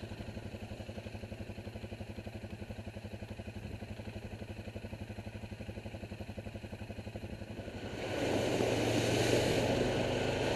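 ATV engine running at a steady, even pace as it rides along a dirt track. About eight seconds in it gets louder, with a rough rushing noise over the engine.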